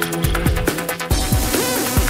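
Electronic dance music with a steady kick-drum beat and sustained synth notes; about a second in, the ticking hi-hats give way to a hissing wash.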